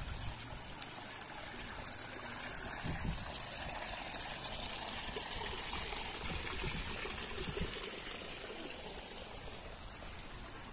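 Small stream of water trickling and running over stones, growing a little louder midway and fading near the end.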